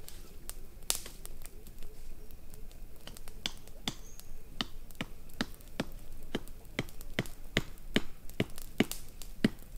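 Wood campfire crackling: sharp snaps and pops, sparse at first, then coming about twice a second.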